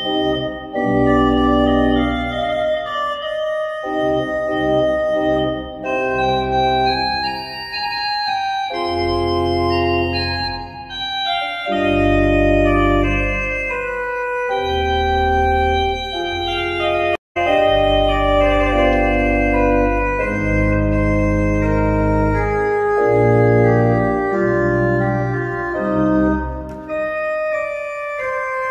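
Pipe organ with mechanical action being played: sustained full chords over deep bass notes, changing every second or two, with a momentary break about two-thirds of the way through.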